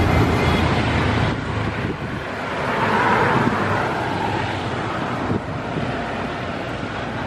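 A steady outdoor roar with wind buffeting the microphone, swelling a little about three seconds in.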